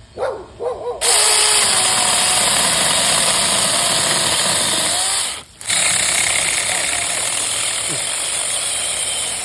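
Saker battery-powered mini chainsaw running and cutting through a thicker limb: a loud, steady, hissing buzz of the chain in the wood that starts abruptly about a second in, breaks off briefly past the middle, then carries on.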